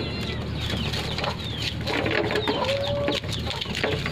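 Chickens clucking and chirping, with many short calls and one longer held call near the middle, over the scattered clicks of puppies eating from a shallow pan.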